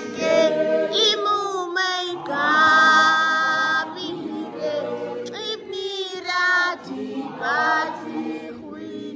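A group of voices singing together, choir-style, with one long held note a little over two seconds in.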